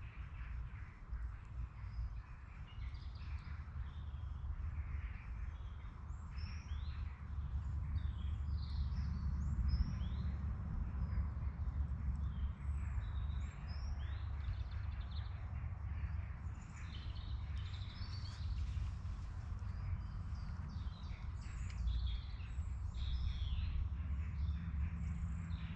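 Woodland birds calling and singing, many short chirps overlapping throughout, over a steady low rumble.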